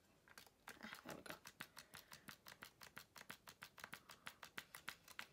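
Plastic pump head of a foundation bottle being pressed over and over, making a quiet, fast run of small clicks, about seven a second.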